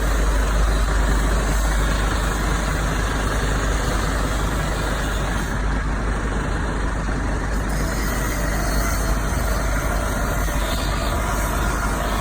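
Steady, loud street noise: strong typhoon wind rumbling on the microphone over road traffic and idling vehicles.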